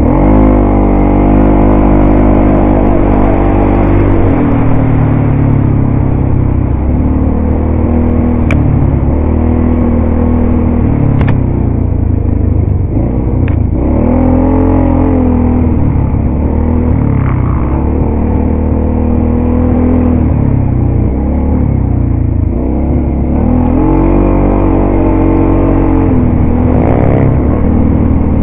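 ATV engine running hard along a dirt trail, its pitch rising and falling again and again as the throttle is opened and eased. A few sharp clicks come through in the middle.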